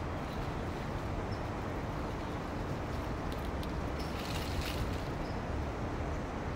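Steady low outdoor background rumble, with a few faint high ticks a little past the middle.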